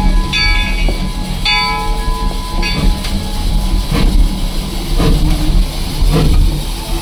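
Steam locomotive bell ringing about once a second for the first three seconds, over a steady low rumble. Soft puffs then follow at about the same pace.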